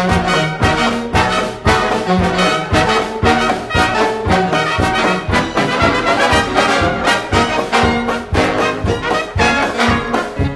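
Instrumental 1920s-style jazz dance band music, with brass carrying the tune over a quick, steady beat.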